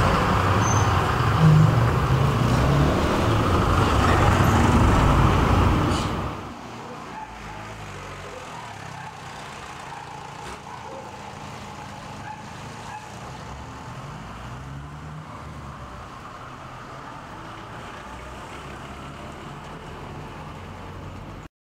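Street traffic: a motor vehicle running loud and close for about six seconds, then the sound cuts abruptly to quieter, steady street ambience with distant traffic.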